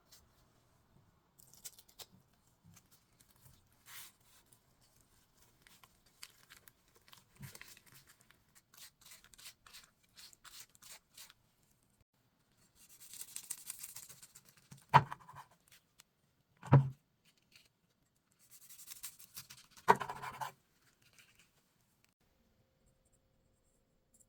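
Hands-on kitchen work on square gimbap: scattered light clicks and rustles, two stretches of scratchy, tearing-like noise, and three sharp knocks on a hard surface about two seconds apart in the second half.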